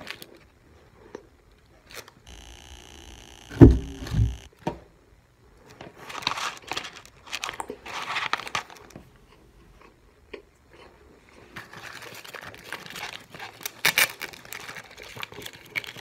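Close-up eating sounds of a McDonald's burger being finished: chewing and the crinkling of its paper wrapper, in patches. A couple of loud, deep thumps come about three and a half to four seconds in.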